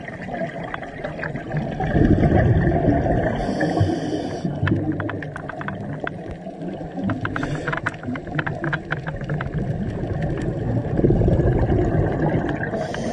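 Scuba diver breathing through a regulator underwater: exhaled bubbles rumble and gurgle in long surges, each followed by a short hiss as the diver breathes in. Sharp crackling clicks are scattered through the middle.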